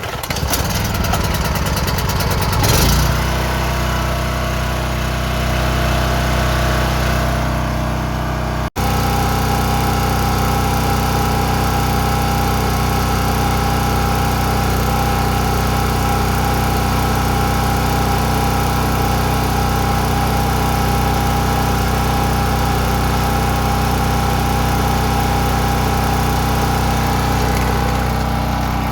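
Small engine starting up and surging briefly, then running steadily at a constant speed.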